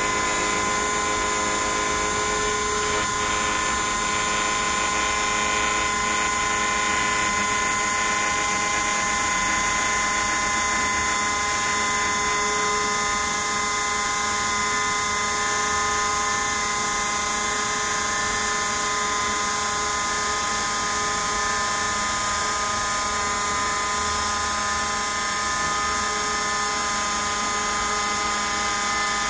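Small CNC router spindle running with a steady high-pitched whine as its bit carves white polystyrene foam.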